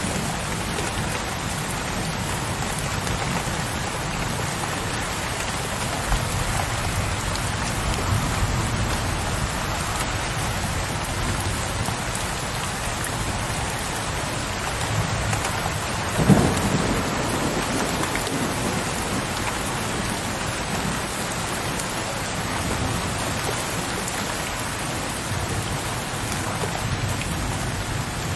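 Steady rain with low, rolling thunder. One louder thunderclap comes a little past halfway.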